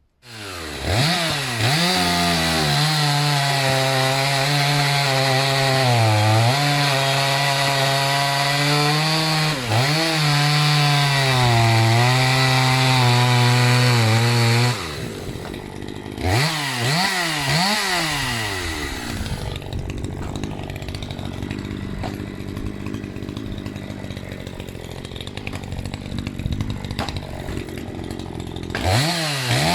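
Maruyama MCV5100S two-stroke chainsaw (the Dolmar 5105) held at full throttle through a cut for about fifteen seconds, its speed dipping briefly a few times under load. It then drops back, is revved up and down twice, idles, and revs up again near the end.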